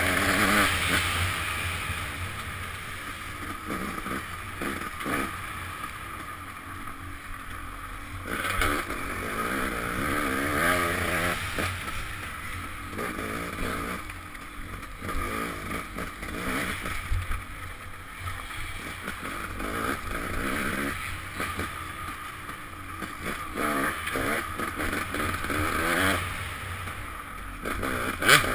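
Off-road motorcycle engine revving up and falling back again and again as the throttle is worked along a trail, heard from the rider's helmet. A sharp knock near the end.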